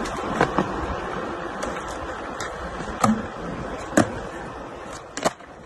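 Skateboard wheels rolling on smooth concrete, with several sharp clacks of the board striking the ground and a ledge; the loudest clacks come about three and four seconds in.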